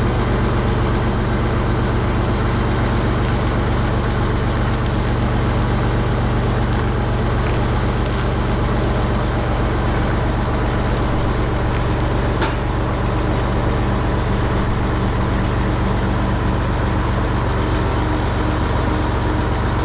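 A vehicle engine running steadily, an unbroken low drone, with one faint click near the middle.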